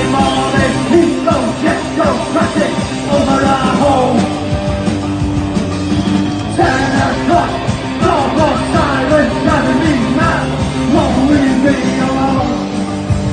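Punk rock song played by a band, with singing.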